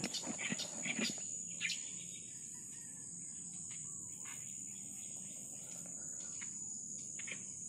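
Insects chirring in a steady high-pitched drone, with a few short sharp sounds in the first two seconds.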